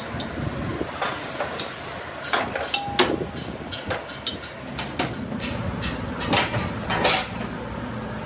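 Metal wrenches clinking and knocking on an excavator's hydraulic control valve block, with small steel valve parts rattling as they are set into a plastic tray. The strikes are irregular, the loudest about three seconds in and about seven seconds in, over a low steady hum.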